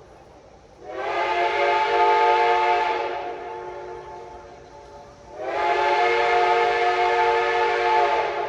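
Reading six-chime steam locomotive whistle sounding two long blasts, each a chord of several tones that slides up to pitch as it opens and rings away in echo after it shuts off. The long blasts are the whistle signal calling in the flagman.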